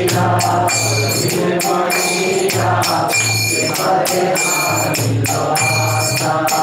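Devotional kirtan music between sung lines: small brass hand cymbals (kartals) strike in a steady, repeating rhythm, their ringing tones over low drum beats and a pitched melodic line.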